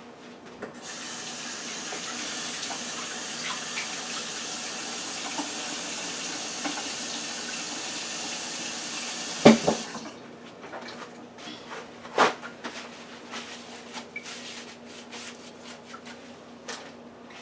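Kitchen tap running into a sink as hands are washed: a steady rush that stops about ten seconds in, with a sharp knock as it ends. After that come scattered small clicks and knocks.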